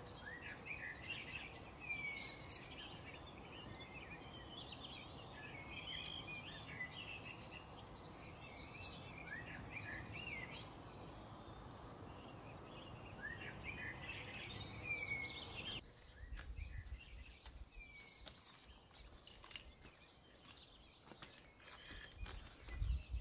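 Many small birds chirping and twittering over a steady outdoor hiss, as at a weaver bird nesting site. About sixteen seconds in it cuts to fainter outdoor sound with scattered light clicks and steps on a stony path, and a few more chirps.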